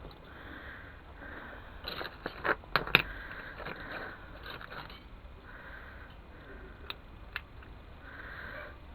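Sharp clicks and knocks of small metal parts and tools being handled, a quick cluster about two seconds in and two lone clicks later, with a person's breathing heard in soft swells in between.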